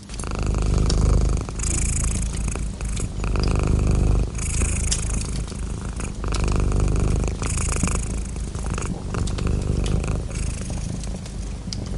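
Domestic cat purring close to the microphone, a low rumble that swells and eases with each breath, roughly every one and a half to two seconds, with light scattered crackles.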